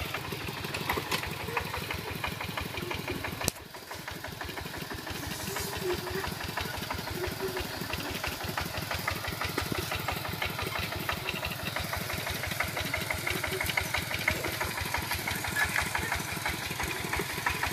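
Kubota two-wheel walking tractor's single-cylinder diesel engine running steadily with a rapid, even firing beat as it pulls a disc plough through the soil. The sound drops out briefly about three and a half seconds in, then picks up again.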